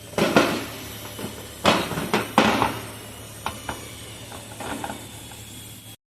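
Metal tools and parts clanking and knocking as they are handled during engine-mount work, a few sharp hits then lighter clicks. The sound cuts off abruptly near the end.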